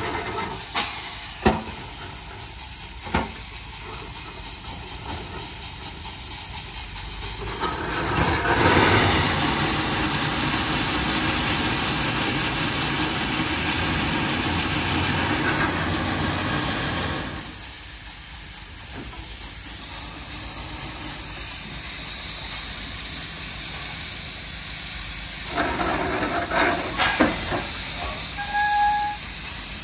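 Bucyrus-Erie 50-B steam shovel working, its steam engines hissing. A loud steady hiss of escaping steam starts about eight seconds in and lasts about nine seconds, with a few sharp knocks and clanks near the start and again near the end.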